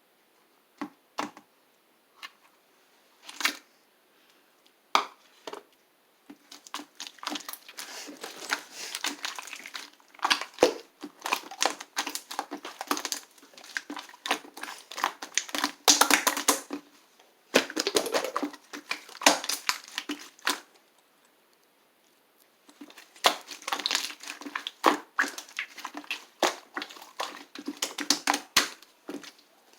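Slime being squeezed and pressed by hand, making dense, irregular crackling, popping and squishing. It starts as a few scattered pops, then runs thick, with a short break about three-quarters through.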